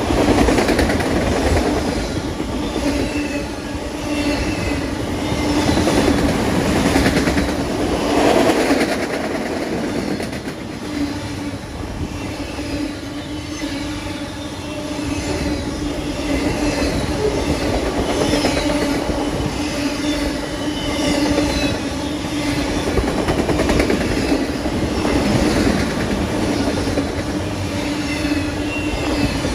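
Freight train of autorack cars rolling past at close range: a steady rumble and rattle of wheels on the rails, with a steady low hum and many brief high-pitched wheel squeals.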